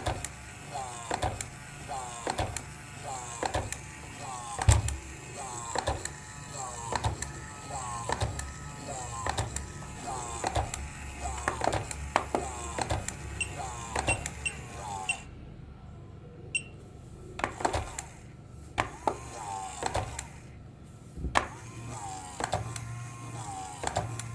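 Electric toy running, with sharp clicks about twice a second, each paired with a short warbling electronic tone. It cuts out about two-thirds of the way through and starts again.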